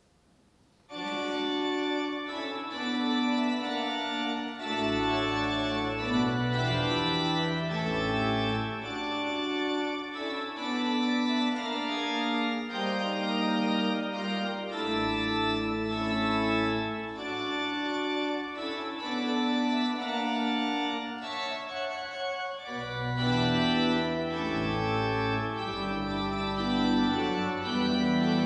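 Church organ playing a closing voluntary after the benediction: slow, sustained chords start about a second in, with a deep pedal bass that drops out and returns several times.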